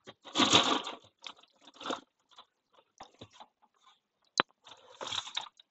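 Rustling, crinkling handling noises in several short bursts, with a sharp click about four and a half seconds in.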